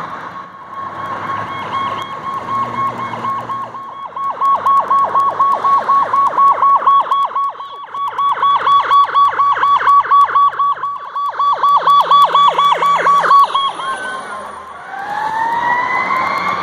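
Emergency siren on responding fire apparatus: a steady wail, which switches about four seconds in to a fast, evenly pulsing tone. Near the end the siren starts a new rising wail.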